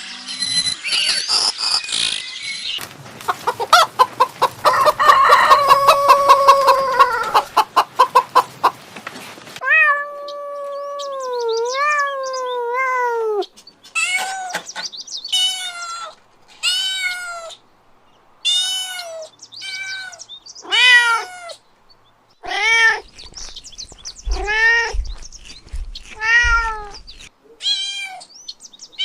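A domestic cat meowing over and over: first one long wavering meow, then about a dozen shorter meows that each rise and fall in pitch. Before the meows, the first third holds a loud stretch of clattering, clicking noise with a pitched call in it.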